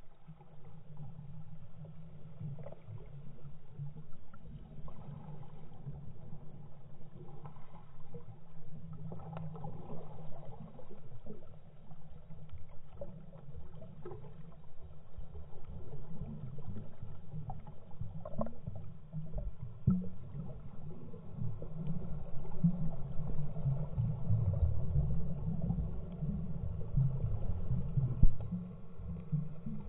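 Muffled underwater noise recorded with the camera submerged: a steady low rumble of moving water with occasional soft knocks, the sharpest one near the end.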